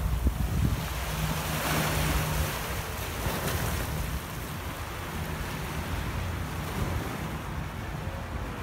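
Sea waves washing on the shore, swelling about two seconds in, with wind buffeting the microphone.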